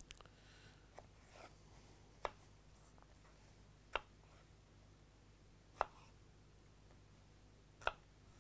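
Chef's knife cutting cucumber strips on a bamboo cutting board: a few separate, faint knocks of the blade on the board, roughly two seconds apart.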